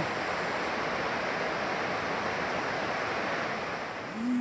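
Fast river current rushing over rocks: a steady, even rush of white water. Near the end a person makes a brief vocal sound.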